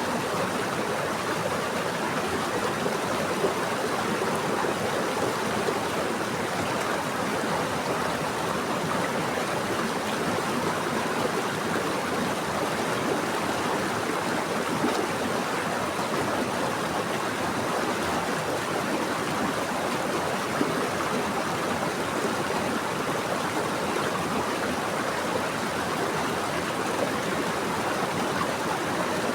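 Running water flowing steadily, an even, continuous rush with no pauses.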